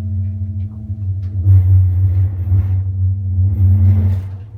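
Hydraulic elevator running: a loud, steady low hum and rumble. It swells about a second and a half in and stops shortly before the end.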